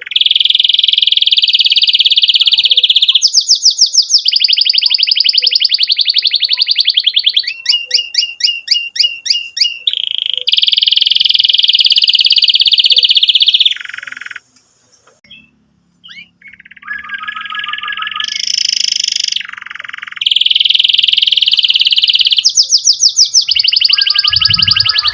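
Domestic canary singing: long, fast, buzzing rolls broken up by runs of quick rising chirps. There is a short break in the song near the middle.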